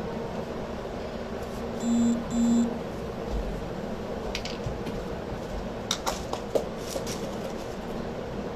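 Two short electronic beeps in quick succession about two seconds in, over a steady low room hum. These are followed by a few light clicks and taps from craft supplies being handled, including a small metal tin.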